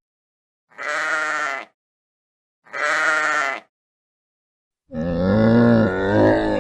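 Two short bleats, each about a second long with a wavering pitch, a second apart. About five seconds in, a longer, deeper animal call starts.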